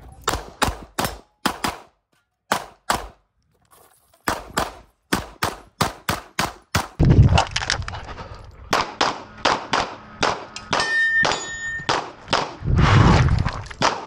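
Rapid pistol shots fired in quick strings, with a pause of about two seconds early on. Some hits are answered by the clang and ring of steel targets, with one short metallic ringing tone near the end.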